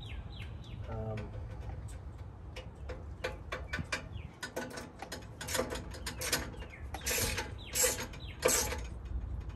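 Ratchet wrench with a deep socket clicking in quick runs as the mounting bolts are tightened, with a few louder metallic clicks near the end.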